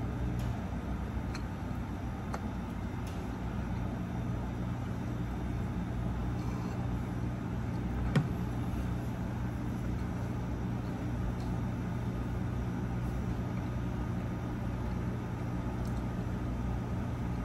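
Steady low background hum made of several level low tones, with a single sharp click about eight seconds in.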